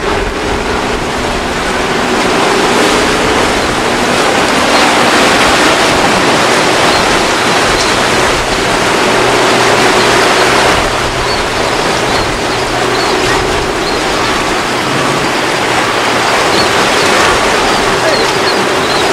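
Choppy surf washing, with the steady hum of a boat's outboard motors running underneath.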